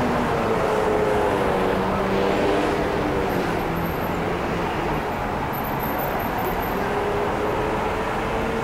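Steady city street traffic noise: cars running past, with faint engine hum.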